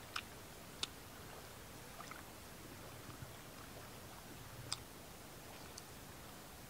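Faint sounds of someone eating fried fish by hand: short sharp crackles as pieces are broken off and chewed, two in the first second and another a few seconds later, over a steady faint background hiss.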